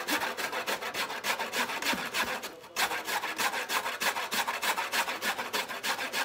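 Horseradish root being grated on a stainless-steel box grater: quick rasping strokes, about five a second, with a short break about two and a half seconds in.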